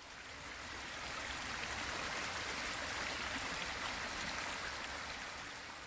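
Small rocky brook running over stones in shallow rapids: a steady rushing and splashing of water that swells in at the start and fades away near the end.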